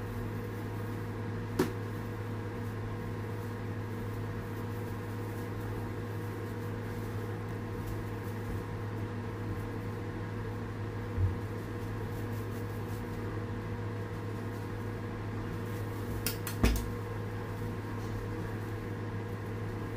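Steady low machine hum with a few steady overtones, broken by a few light knocks and clicks from handling on the countertop; the loudest are two close together about three seconds before the end.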